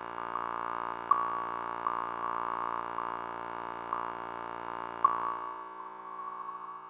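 Eerie sustained electronic drone of several steady tones, with a couple of sharp pings cutting through it. About five seconds in, the lower tones drop away and the drone fades.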